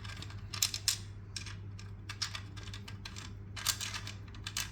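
Irregular small metallic clicks and taps of a hand tool tightening the nut that holds a balance bike's training wheel, over a steady low hum.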